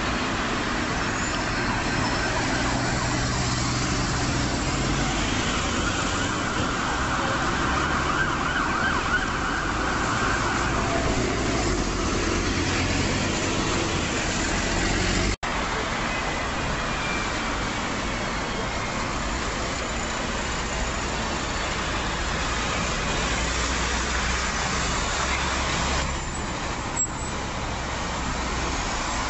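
Busy city road traffic: cars, vans and buses running past steadily. The sound cuts out for an instant about halfway through.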